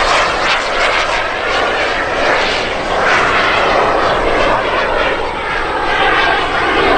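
Subsonex JSX-2 mini-jet's single PBS TJ100 turbojet running at power through aerobatic manoeuvres: a continuous loud jet rush whose tone slides up and down as the jet moves across the sky.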